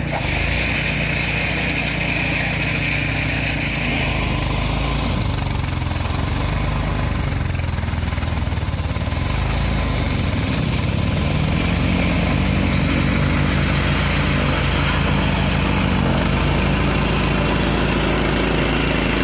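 Neva MB-2 walk-behind tractor with a snowblower attachment running steadily while it throws snow; its single-cylinder petrol engine drones under load.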